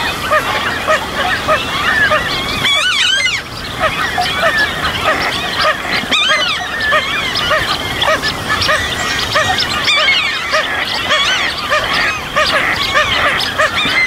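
A dense spring chorus of many frogs calling over one another without a break, short quacking or honking notes repeated from all sides, with birds singing through it.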